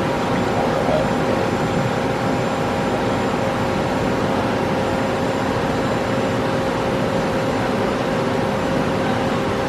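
Okuma Crown CNC lathe running under power through a machining cycle: a steady machine hum with a constant whine and no breaks.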